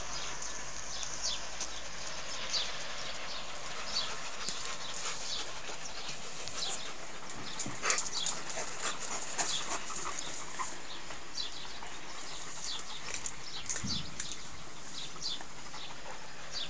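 Alaskan Malamute panting close to the microphone over a steady hiss, with short high chirps scattered through. There is a soft low thump near the end as the dog gets up and moves.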